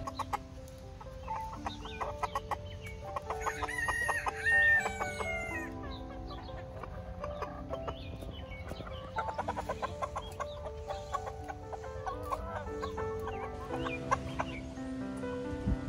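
Backyard chickens clucking as they are fed greens, with one rooster crowing about four seconds in, the loudest sound here. Soft background music with long held notes runs underneath.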